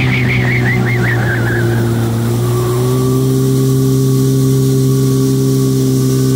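1997 Yamaha WaveRunner 760's two-stroke twin engine running down off the throttle from near top speed. Its pitch falls over the first couple of seconds, then it settles to a steady, lower-revving run as the craft slows.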